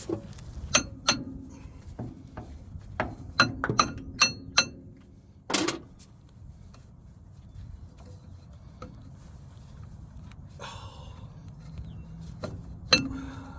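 Metal tools striking and clinking against metal parts of a grinder's drive coupling, each strike ringing briefly. About eight sharp strikes come in the first six seconds, a brief scrape follows, and one more strike comes near the end.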